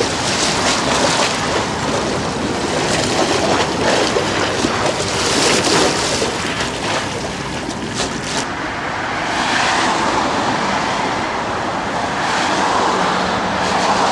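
River waves washing and splashing against stone embankment steps, with wind on the microphone. The sharper splashes stop a little over halfway through, leaving a steadier rush of water and wind.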